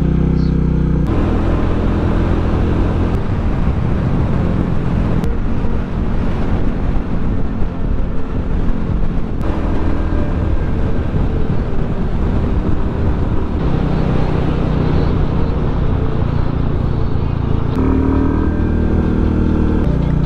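Royal Enfield Classic 350 single-cylinder engine running on the road, under a strong rush of wind noise while riding at speed. The sound changes abruptly several times as ride clips are cut together, and the engine's steady note is clearest in the first second and the last few seconds.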